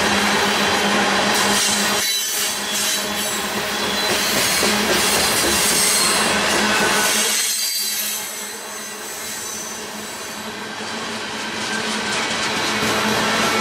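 Freight train of covered hopper cars rolling past: a steady rumble of wheels on the rails that eases off in loudness for a couple of seconds just after the middle.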